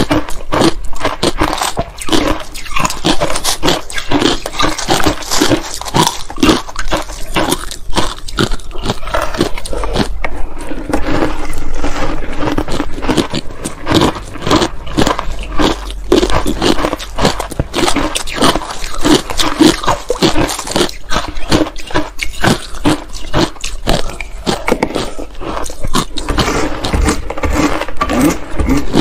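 Close-miked chewing and crunching of matcha-dusted ice, two people's eating sounds layered together: a dense, continuous run of crisp crunches and cracks.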